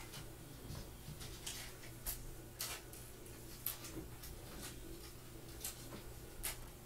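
Trading cards being handled and flipped in gloved hands, making faint, irregular light clicks, with a plastic pack wrapper among them. A steady low hum sits underneath.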